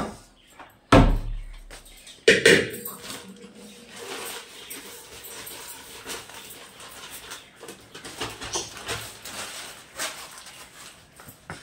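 Two loud clunks of steel kitchen vessels being handled or set down, followed by several seconds of irregular rustling and clattering handling noise.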